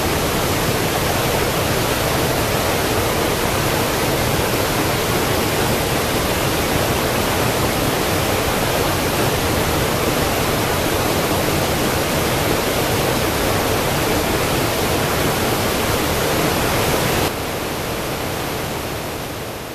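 Mountain river rushing over a small waterfall and boulders: a steady, loud roar of water. Near the end it drops suddenly to a lower level.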